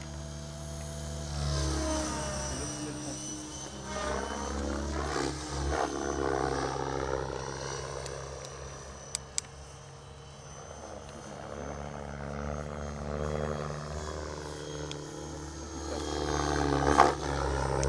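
Radio-controlled model helicopter flying overhead, its whine repeatedly gliding up and down in pitch and growing louder and fainter as it manoeuvres and passes.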